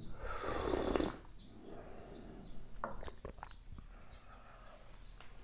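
A loud slurp of tea sipped from a small tasting cup, lasting about a second. Then small birds chirp faintly and repeatedly, with a few light clicks about three seconds in.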